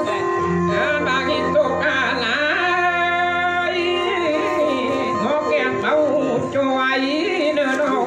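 Khặp Thái (Tai Dam) folk song: a voice sings long, wavering held notes over a steady instrumental backing.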